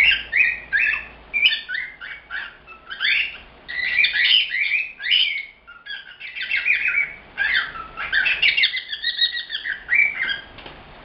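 Cockatiel chattering: a fast, nearly unbroken run of short, high chirps and squawks.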